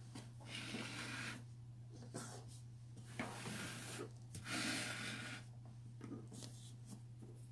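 Faint rubbing and rustling in several short patches as hands handle quilled paper and turn the plastic work board on the table, over a steady low hum.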